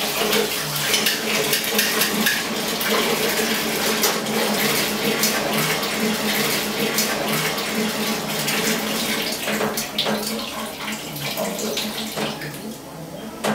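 A faucet runs into a sink while dishes are washed, with short clinks of dishes and utensils now and then. The running water thins out near the end.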